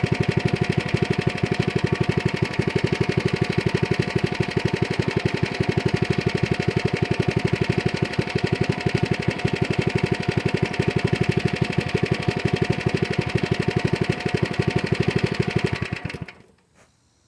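Mini bike's small engine idling with an even, fast pulsing beat, then shut off about a second before the end, the sound dying away to silence.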